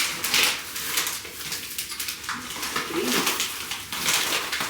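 Household decor items being handled and set down: a sharp knock at the start, then a run of rustling and light clattering.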